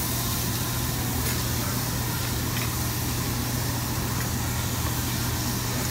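Beef slices sizzling on a tabletop Korean barbecue grill over the constant low hum of the ventilation fans, with a few faint clinks of utensils.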